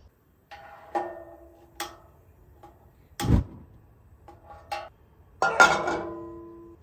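Light metallic clinks that ring briefly, a dull thump about halfway, then a louder clang near the end as a stainless steel skillet is set down on a steel burner grate, ringing and fading out over about a second.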